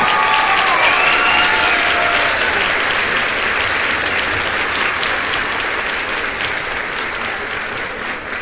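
Crowd applause, with a few pitched calls over it in the first couple of seconds, slowly fading.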